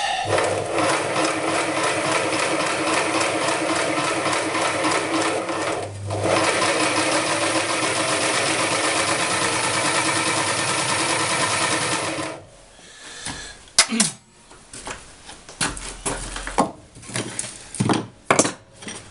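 Homemade scroll saw, its blade driven up and down by an electric jigsaw mounted under the table, running steadily with a brief drop about six seconds in, then switching off about twelve seconds in. A few short clicks and knocks of handling follow.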